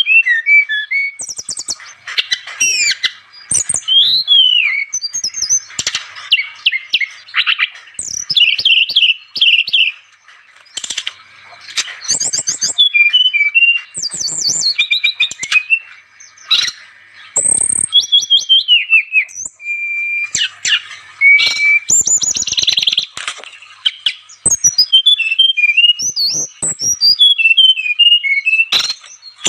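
Brown-chested jungle flycatcher singing a long, varied song of quick chirps, trills and gliding whistled notes. The phrases come one after another with only short breaks between them.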